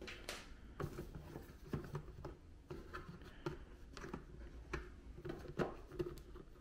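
Faint, irregular clicks and light scraping from hands handling the Instant Pot's plastic bottom cover.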